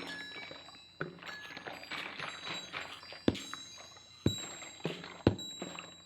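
Sharp knocks, four in all and a second or so apart, over high, lingering ringing tones like struck chimes.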